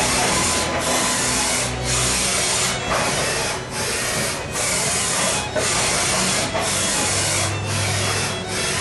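ACER VMC 2240XL CNC vertical machining center running: a loud, dense hiss broken by short gaps about every second, with lower tones shifting underneath.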